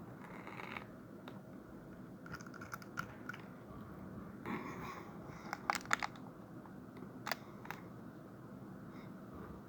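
Small objects being handled: scattered light clicks and short rustles over a steady low room hum, with a cluster of sharper clicks about halfway through.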